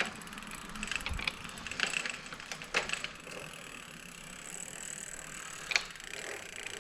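Bicycle drivetrain turned by hand: the newly fitted chain runs over the sprockets while the freewheel ratchet ticks, with scattered mechanical clicks that are busiest in the first three seconds and one sharp click near the end.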